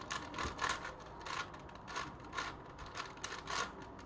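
Plastic Crazy 3x3x3 Mercury twisty puzzle being turned by hand: its layers rotate with an uneven run of quick plastic clicks.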